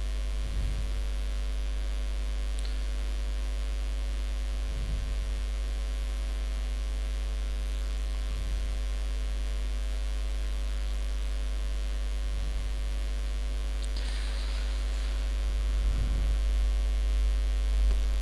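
Steady electrical mains hum in the microphone signal, low and buzzing with evenly spaced overtones, broken only by a few faint soft bumps.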